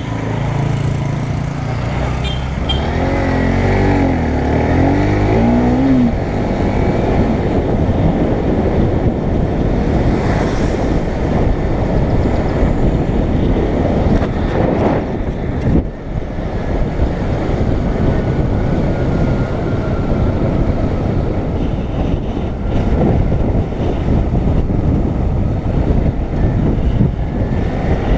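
Motorcycle riding along a road, filmed from a camera on the bike: steady wind rush over the microphone with the engine underneath. The engine's pitch rises and falls several times in the first few seconds.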